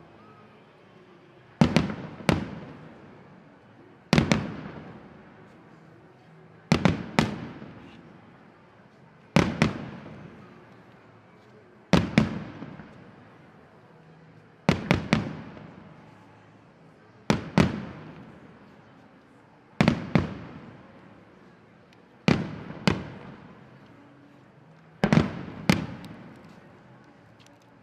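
Aerial firework shells bursting at a steady pace: a sharp bang about every two and a half seconds, often as a quick double report, each followed by a fading echo.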